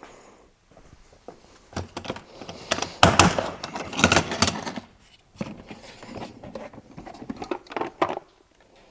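Tools clinking and clattering as a hand rummages through a Stanley toolbox, with a run of loud rattles and knocks about three to four and a half seconds in, then lighter clicks.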